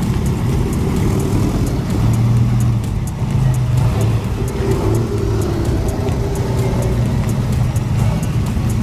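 Motor trikes (three-wheeled motorcycles) riding slowly past one after another, their engines running at low revs in a steady low rumble that rises and falls a little as each one goes by.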